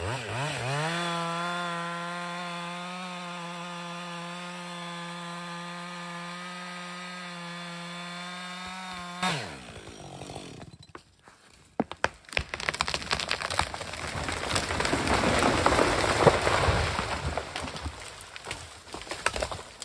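Chainsaw engine revving up and holding a steady full-throttle pitch for about nine seconds, then dropping away as the throttle is released. After a short lull comes a long stretch of cracking and snapping, loudest near the middle of it.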